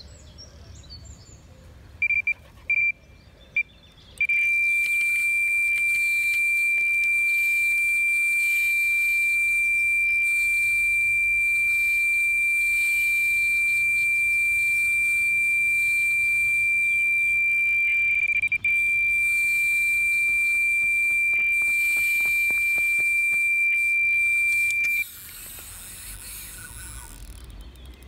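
Electronic carp bite alarm signalling a run: a few short beeps as line starts to move, then one unbroken high tone for about twenty seconds as a fish takes line off the rod, stopping suddenly near the end.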